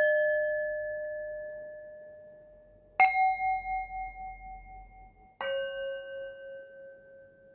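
Singing bowls struck one at a time, each at a different pitch: the first is already ringing and fading, and two more are struck about three and five and a half seconds in. Each rings on and slowly dies away.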